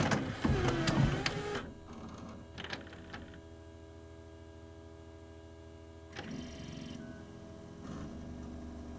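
Pioneer LaserDisc/DVD combination player loading a DVD. The tray motor whirs for about a second and a half as the tray draws in, then come a few light mechanical clicks and a quieter steady whir as the disc is read and spun up, rising about six seconds in.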